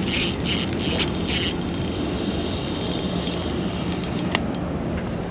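Fishing reel being cranked, its gears whirring in even pulses about three a second, stopping about a second and a half in; after that only a few small clicks over a steady low hum.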